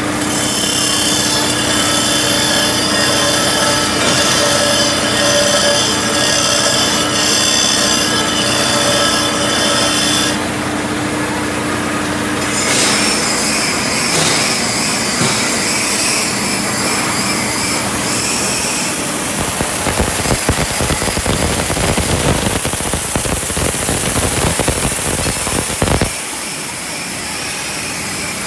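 Glass-working machinery: a water-fed wheel for grinding wine glasses running with a steady whine and hum for about the first ten seconds, then a changing mix of workshop machine noise.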